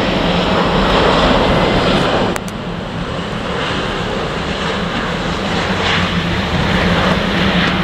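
Airbus A350's Rolls-Royce Trent XWB jet engines as the airliner comes in low to land: a loud, steady rushing jet noise with a low hum beneath it, dropping suddenly in level a little over two seconds in.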